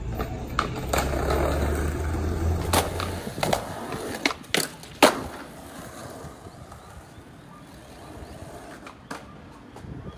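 Skateboard wheels rolling on rough concrete. Around the middle comes a run of sharp wooden clacks as the board's tail pops and the board lands back on the ground, and then the rolling goes on more quietly.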